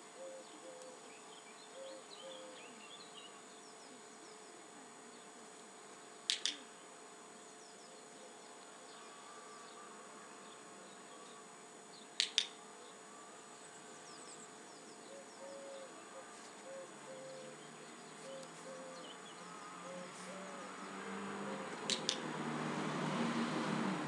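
A dog-training clicker clicked three times, several seconds apart, each a quick double click, marking the puppy's right move for a treat. Faint chirping runs underneath, and a louder rushing noise builds near the end.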